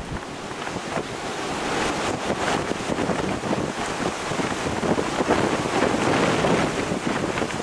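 Heavy storm surf from a typhoon crashing and rushing, with wind buffeting the microphone. The noise swells over the first couple of seconds, then holds.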